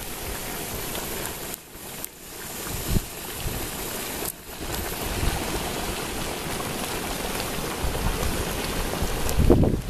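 Geothermal mud pots and a steam vent hissing and bubbling, with gusts of wind buffeting the microphone, strongest near the end.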